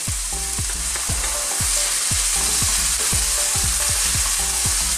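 Chicken breast strips and chicken liver sizzling in hot oil in a pan, with stirring.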